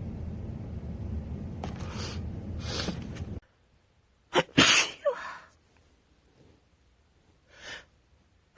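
A woman sneezing with a head cold: one loud sneeze just past the middle, a short catch of breath and then the full burst. Before it, a couple of faint breathy sounds over a low steady hum that cuts off suddenly. A smaller breathy sound, a sniff or breath, comes near the end.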